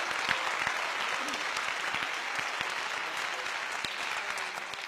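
Audience applauding: a dense, even clapping of many hands that slowly grows quieter.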